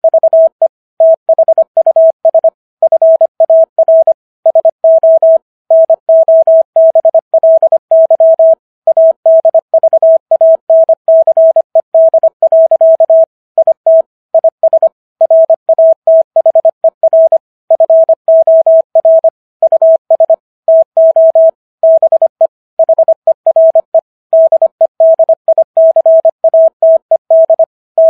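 Morse code at 25 words per minute: a single mid-pitched tone keyed on and off in quick dots and dashes, with short gaps between letters and words, spelling out the text of the Gettysburg Address.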